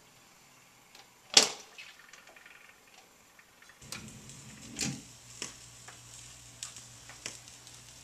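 Record changer of a 1959 Magnavox Imperial console stereo cycling to change records. It gives a sharp click about a second and a half in, then a low hum from about four seconds, with a thump and several lighter clicks and clunks from the mechanism.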